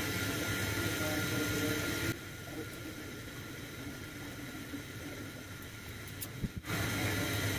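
Curry gravy simmering in a frying pan: a low, steady hiss with a faint hum. It drops quieter about two seconds in and comes back near the end, just after a couple of soft clicks.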